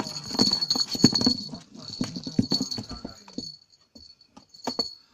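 A small jingle bell on a string cat toy jingling steadily as a kitten bites and bats at it, with scratching and rustling against cardboard and paper. The jingling stops near the end.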